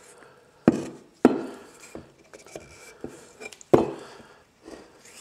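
Metal automatic-transmission parts knocking and clanking as the sprag assembly is worked apart by hand: three sharp hits, the loudest about three-quarters of a second in and near the middle, with lighter clicks between.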